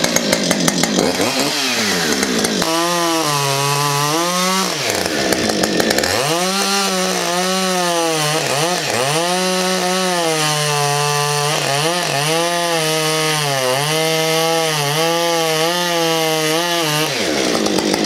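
Husqvarna 550 XPG 50 cc two-stroke chainsaw revved up and held at full throttle, cutting slowly into a spruce cant. The revs sag again and again under load, then fall away near the end. The chain is dull, having struck WW2 steel buried in the log, and needs its teeth sharpened.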